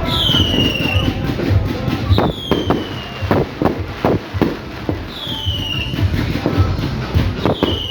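Fireworks going off: a dense run of sharp bangs and crackles, with four falling whistles about two and a half seconds apart.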